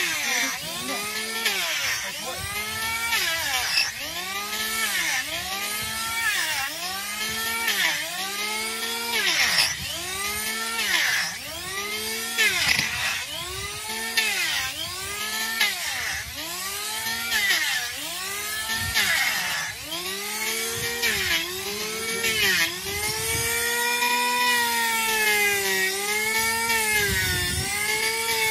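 Handheld electric planer running as it shaves a donkey's hoof horn, a motor whine whose pitch sags and recovers about every second and a half as the blade takes each pass. The dips become shallower and slower near the end.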